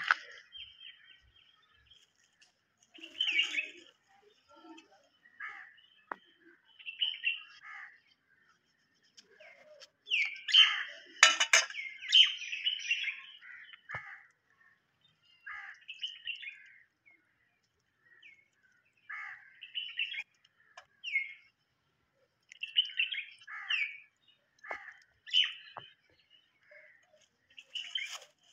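Birds chirping and calling in short, scattered bursts, with a sharp click about eleven seconds in.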